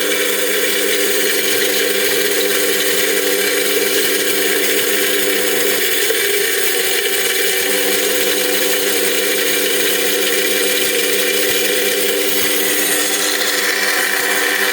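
Homemade grain crusher driven by an angle grinder, running at a steady speed.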